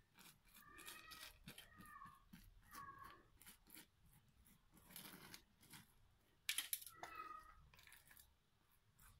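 Silicone pastry brush dabbing and rubbing melted butter over freshly baked buns: soft brushing strokes with faint short squeaks, and a brief sharp clatter about two-thirds of the way through.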